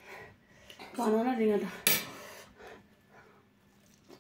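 Eating at a table: a woman's voice sounds briefly about a second in, then a single sharp clink of a metal fork against a small steel bowl. Quieter eating sounds follow.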